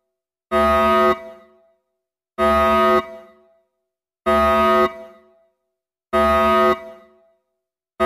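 Emergency alert alarm made of loud horn-like blasts, each about two thirds of a second long with a short echoing tail, repeating evenly about every two seconds; four blasts, with a fifth starting at the very end.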